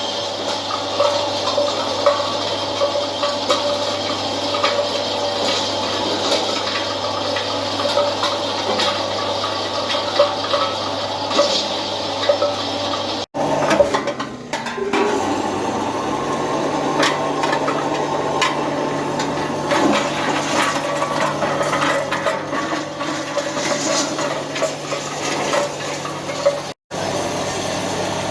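Cassava flour milling machine with a cyclone running: a steady rushing whir over a low motor hum, with scattered small clicks and rattles. The sound cuts out abruptly twice, about 13 seconds in and near the end, and after the first break the hum sits a little higher.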